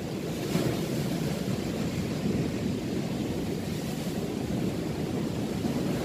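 Rough ocean surf washing and breaking steadily, with wind buffeting the microphone.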